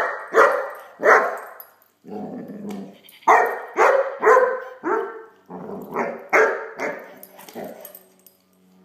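Great Dane puppy barking in a quick run of short, loud barks, about two a second, with a lower rough growl about two seconds in.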